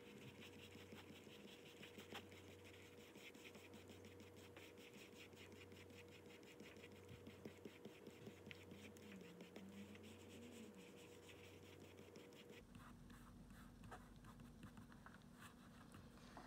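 Faint scratching of an oil pastel stick and rubbing of fingertips on drawing paper, in many short strokes.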